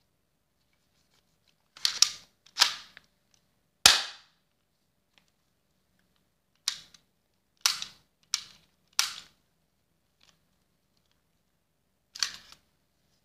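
Airsoft Colt M1911A1 pistol being worked by hand: about eight sharp, short snaps come at irregular intervals as the slide is racked and the trigger is pulled.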